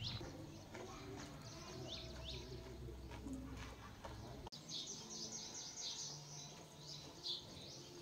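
Small birds chirping in short, falling chirps: a few at first, then a quick run of many after a brief break about halfway through.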